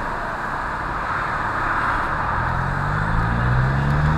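Steady road and tyre noise inside a car on a freeway. From about two seconds in, the car's engine rises slowly in pitch as the car speeds up.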